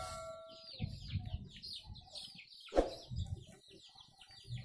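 Chickens peeping: a steady run of short, falling high chirps, with one sharp knock about three seconds in. A ringing tone fades out in the first second.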